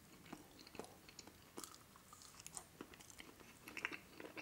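Faint, close-miked chewing of a mouthful of chocolate truffle, with soft wet mouth clicks scattered throughout and a small cluster of louder ones near the end.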